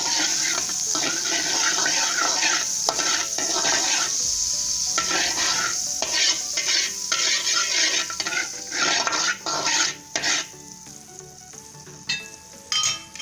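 Butter melting and sizzling in a hot frying pan. The sizzle comes in uneven surges and dies down after about ten seconds, with a few sharp pops near the end.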